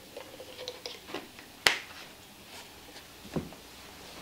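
Light clicks and ticks of a small plastic sauce bottle being capped and handled, with one sharp click about a second and a half in and a soft knock near the end.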